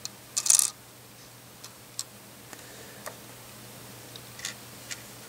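Small LEGO plastic pieces scraping and clicking as a LEGO hot dog is set on the barbecue's grill bars. A brief scrape comes within the first second, then a few scattered light ticks, over a faint steady hum.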